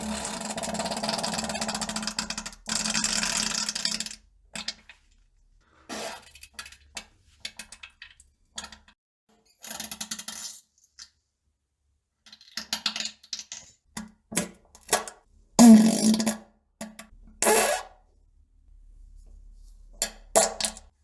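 A run of fart sounds. The first is a long, buzzy one lasting about four seconds, followed by about a dozen short farts with pauses between them; the loudest comes about two-thirds of the way through.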